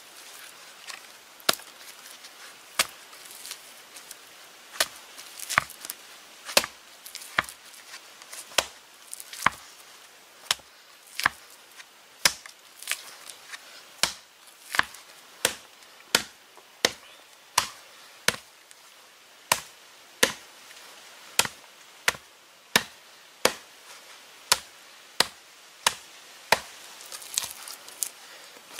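A lump of wet clay slammed down again and again onto a flat stone as it is kneaded to prepare it for pottery. It makes a sharp, even slap about every three-quarters of a second.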